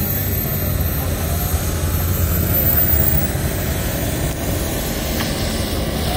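Twin electric motors and propellers of an RC Cessna 421 model running at low power as it taxis, over a steady low rumble.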